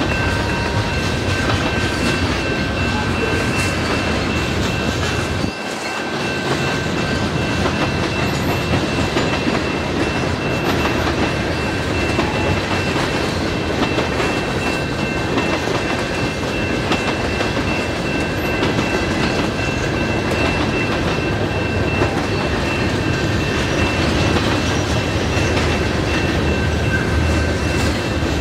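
Freight train cars rolling steadily past a level crossing, their wheels rumbling and clicking over the rails. A steady high-pitched tone sounds over the rumble throughout.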